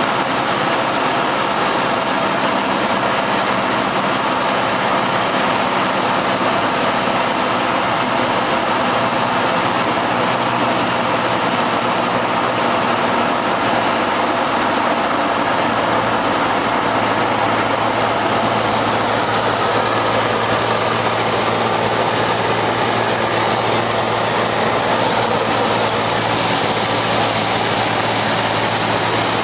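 Cessna 172's single piston engine and propeller heard inside the cockpit, a steady drone with cabin noise, while the aircraft is on approach. The engine note shifts slightly about halfway through.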